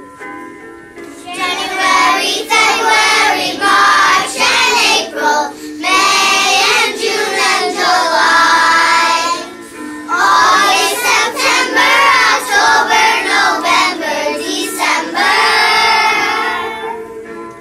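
A group of kindergarten children singing a song together over a music accompaniment. The singing starts about a second in, breaks briefly between lines twice, and stops shortly before the end.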